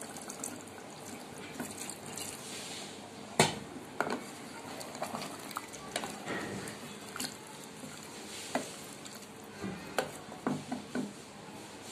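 Water poured into a metal pressure cooker of curry, splashing and dripping, while a wooden spoon stirs and knocks against the pot a dozen or so times; the sharpest knock comes about three and a half seconds in.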